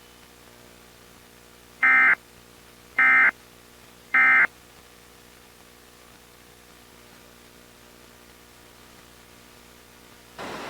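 Emergency Alert System end-of-message data code: three short, harsh, buzzy digital bursts about a second apart, over a faint steady hiss and hum. A brief softer burst of static comes near the end.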